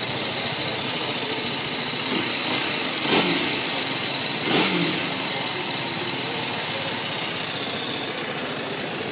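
TVS Apache RR 310's 313 cc single-cylinder engine idling, with two quick throttle blips: one about three seconds in, the other a second and a half later.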